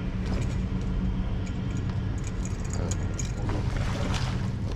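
Steady low motor hum, with a short rush of noise about three and a half seconds in.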